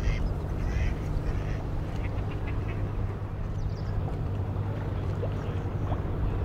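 Low, steady rumble of a small wooden boat's engine and water as it cruises along, with a few short, higher-pitched calls in the first few seconds.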